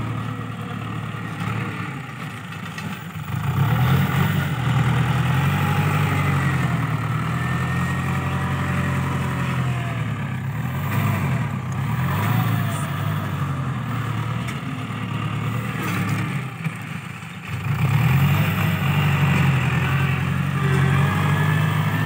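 New Holland TS90 tractor's diesel engine working as the tractor pushes soil with its front blade, the engine note dipping briefly and then rising again a few seconds in and once more about three quarters of the way through.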